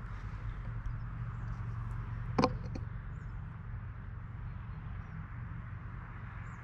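Outdoor ambience: a steady low rumble with faint high bird chirps and one sharp click about two and a half seconds in.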